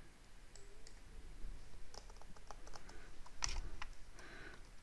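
Faint, scattered clicks of computer keyboard keys being typed on, with a small flurry about two to three and a half seconds in.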